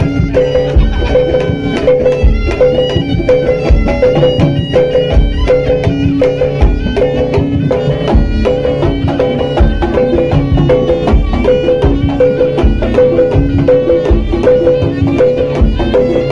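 Live jaranan (kuda lumping) music: a Javanese ensemble of drums and bronze gong-chimes keeps a steady repeating pulse under a shrill, wavering reed-pipe melody.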